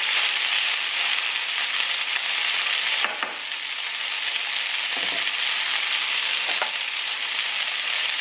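Chicken strips sizzling steadily in a nonstick frying pan, with three short light knocks spread through it.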